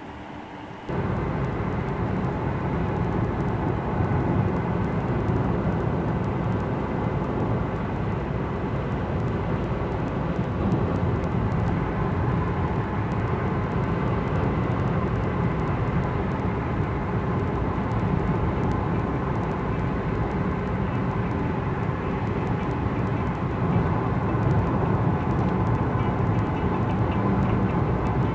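Steady road and engine noise inside a moving car's cabin at speed on a dual carriageway. It starts abruptly about a second in.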